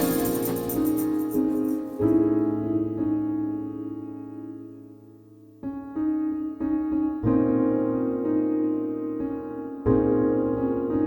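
Background piano music: slow, held chords, one dying away almost to nothing about five seconds in before new notes come in.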